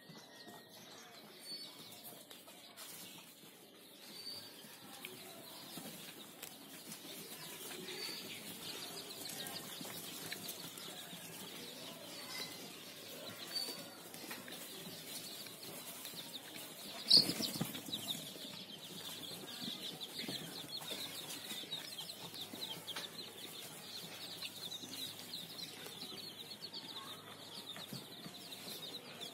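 A flock of chickens moving about: steady rustling and wing-flapping with faint peeping and clucking, and one sharp knock about seventeen seconds in.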